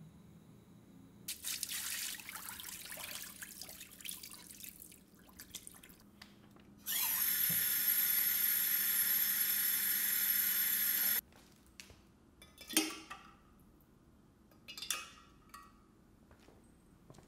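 Water running into a glass jug, a loud steady rush for about four seconds that stops abruptly. Before it comes a softer, uneven water noise, and near the end two short separate sounds.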